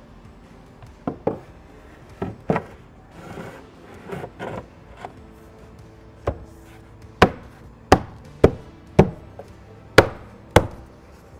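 Oak riser cladding board knocking and rubbing against the stair as it is slotted into place, then seven sharp wooden knocks in the second half as it is struck by hand to bed it onto the grab adhesive. Faint background music underneath.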